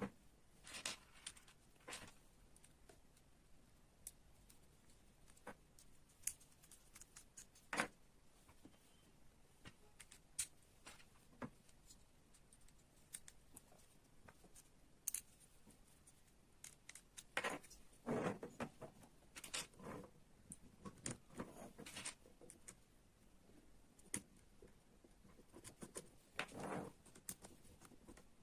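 Small parts of a model excavator kit being handled and fitted together by hand: scattered light clicks, taps and rustles, with busier handling about two-thirds of the way through and again near the end.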